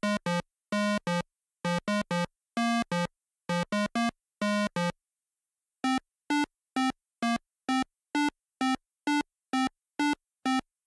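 Simple synthesizer tune of short, separate notes with silence between them: an uneven phrase of notes in the first half, then a steady run of evenly spaced notes about two a second, pitched a little higher.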